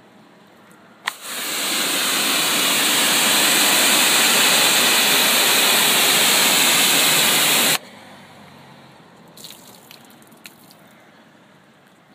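Water sprayed from a hose nozzle onto a car bonnet: a click about a second in, then a steady loud hiss of spray for about six and a half seconds that cuts off suddenly, followed by a few faint short spatters.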